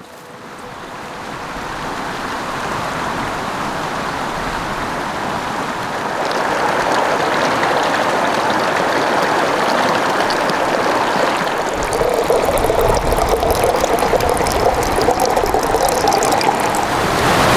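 A mountain creek running, fading in at the start. In the last five seconds or so, water trickles from a water filter into a wide-mouth plastic bottle, splashing as it fills.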